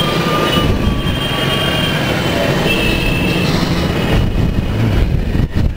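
Dense city road traffic heard from a scooter riding slowly through it: a steady low rumble of engines, with a few thin high-pitched squeals coming and going over it.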